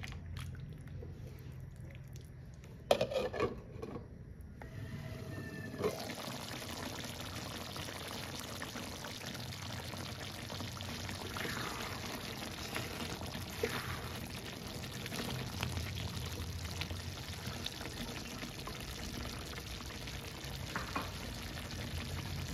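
Creamy pork sauce simmering in a pan and being stirred with a silicone spatula, with a few sharp knocks about three seconds in. From about six seconds in, a steady simmering hiss of the bubbling sauce.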